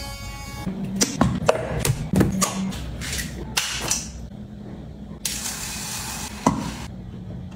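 Electric toothbrush buzzing, which stops under a second in. Then a run of sharp clicks and knocks as a clear plastic cup and toiletry jars are handled and set down on a counter, with a short rushing hiss about five seconds in.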